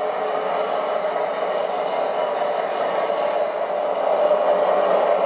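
Electric drive motors and gearboxes of scale RC model trucks running, a steady whirring hum that gets slightly louder about four seconds in.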